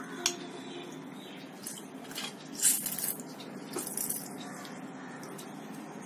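Hand-held metal lemon squeezer clicking and squelching as lemon halves are loaded and pressed, a few short metallic clicks with a longer, louder squeeze near the middle.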